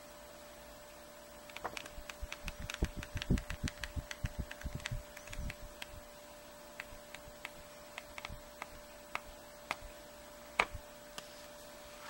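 Paper pages of a small hand-held flipbook flicking off the thumb, a rapid run of clicks and soft thuds for a few seconds, then single page flicks now and then, over a steady faint hum.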